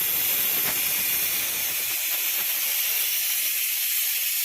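Compressed-air blow gun hissing steadily, blowing air into a tyre pressure sensor's port to test whether the sensor responds.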